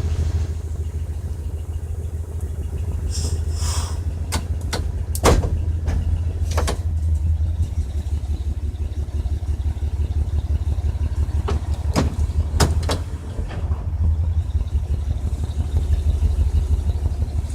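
Ford 4.9 L inline-six engine of a 1992 Econoline E-150 van idling rough: a steady low rumble, with a few sharp clicks scattered through it.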